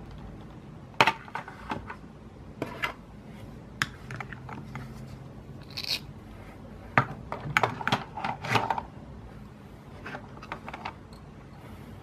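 Hard toy food pieces, a halved toy egg among them, clicking and tapping against each other and a plastic toy frying pan and plate as they are handled. There are scattered single taps, then a quicker cluster of clicks a little past the middle.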